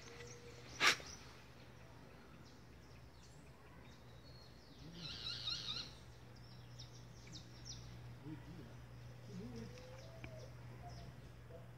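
Birds chirping, with a burst of rapid high twittering about five seconds in and a few faint calls later, over a steady low hum. A single sharp click about a second in is the loudest sound.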